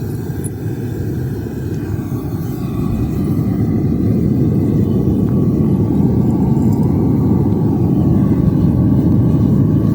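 Melting furnace's burner running at full heat with a steady low rumble, growing a little louder a few seconds in.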